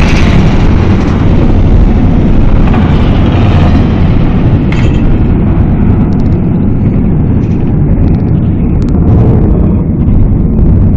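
Dramatic sound effect of a loud, deep, continuous rumbling roar, heaviest in the bass, easing slightly near the end.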